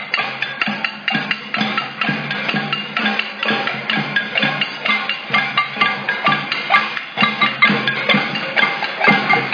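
Marchers beating drums and percussion noisemakers in a steady, dense rhythm of several hits a second.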